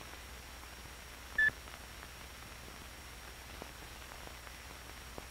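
Steady hiss and low hum of an old film soundtrack with faint scattered crackle clicks, broken once, about a second and a half in, by a single short high beep.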